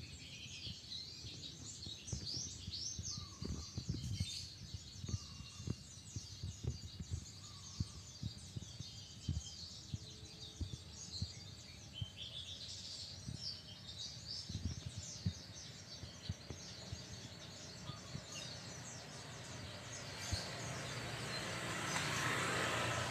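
Birds chirping outdoors, many short high calls overlapping throughout, with scattered low thumps. Over the last few seconds a broad rushing noise swells up.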